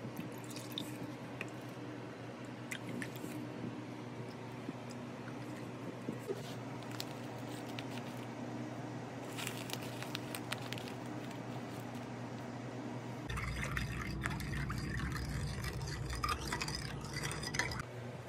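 Quiet kitchen prep sounds: milk poured from a paper cup into a ceramic bowl, then scattered light clicks and rustling as something is spooned out of a paper bag into the bowl. From about two-thirds of the way in, a denser run of small clicks and scraping over a low rumble.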